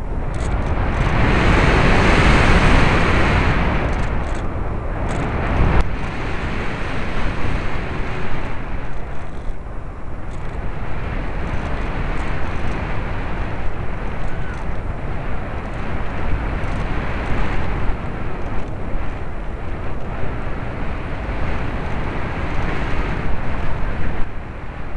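Loud, steady rushing of air over the microphone of a camcorder carried aloft on a flying model aircraft. It swells strongly about two seconds in, then goes on with small gusty ups and downs.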